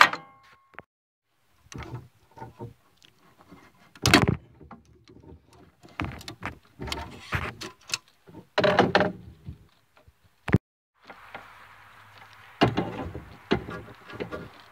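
Irregular clanks, scrapes and rattles of hands working a riding mower's blade-engage cable and its metal fittings free, with a single sharp click about ten seconds in.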